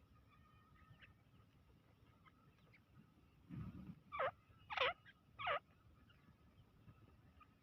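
A teetar (francolin) calling: three loud, quick notes about 4 to 5.5 seconds in, each sliding down in pitch, just after a brief low rumble.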